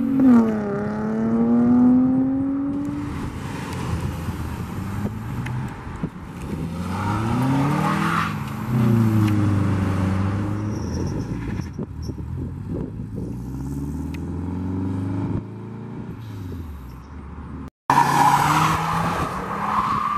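Cars accelerating hard one after another, each engine revving up in rising sweeps with a gear change just after the start. The sound cuts out for a moment near the end, and then another car revs loudly.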